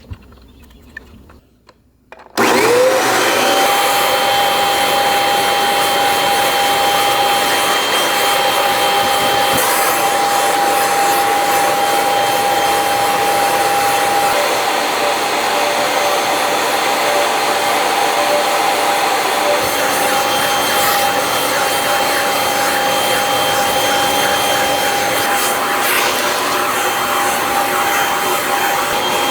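Vacuum cleaner switched on about two seconds in, its motor whine rising as it spins up, then running steadily while it sucks dust from a portable air conditioner's cooling coils.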